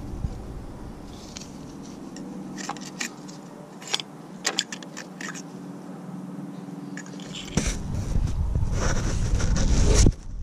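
Small metal clicks and scrapes of parts and tools being handled in a truck's engine bay, over a steady low hum. About three quarters of the way through, louder rubbing and handling noise sets in, rising to a loud peak that cuts off abruptly near the end.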